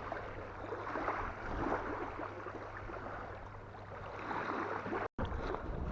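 Wind-driven waves lapping and splashing against the shore, with wind buffeting the microphone; the sound cuts out for a moment near the end.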